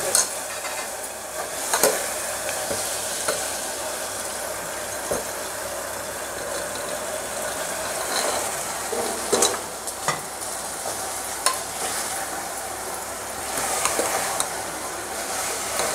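Tomato-onion-free masala sizzling in an open pressure cooker while a steel ladle stirs and scrapes it, with scattered clinks of the ladle on the pot. Boiled chickpeas are tipped in from a steel bowl about halfway through and then stirred into the masala.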